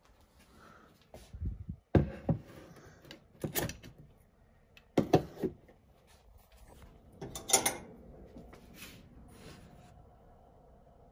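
Stainless steel sugar canister being handled: a run of sharp knocks and metal clinks as it is taken off a shelf, set down on the counter and its lid taken off, the sharpest about two and five seconds in, quieter after about eight seconds as a spoon goes into the sugar.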